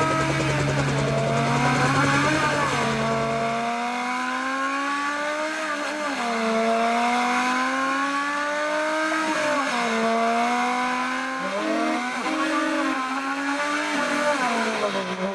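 Car engine accelerating through the gears: its pitch climbs steadily, then drops sharply at each upshift, several times over. A steady low hum runs underneath and stops about four seconds in.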